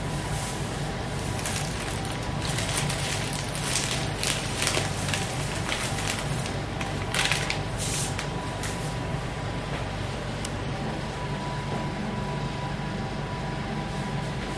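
Plastic bags rustling and crinkling in short spells as gloved hands handle a wrapped package, over a steady low hum. The rustling dies away about nine seconds in.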